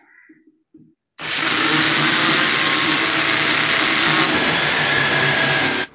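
Electric drill running steadily as it bores a hole through a multiwood board, starting abruptly about a second in and cutting off just before the end.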